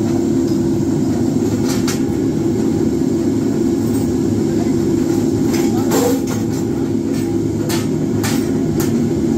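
Steady drone of a running flywheel power press used to hot-forge wheel stud blanks, with several sharp, irregular metal knocks as the hot blanks are handled and struck in the die.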